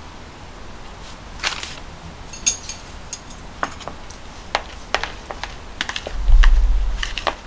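Metal chopsticks clicking and tapping against the side of a mixing bowl as mashed potato and flour are stirred together, about one or two taps a second. A low thump and rumble about six seconds in is the loudest sound.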